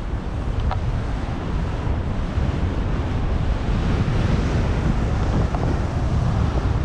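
Wind buffeting the microphone of a skier skiing downhill, a steady low rumble that grows a little louder as the run goes on.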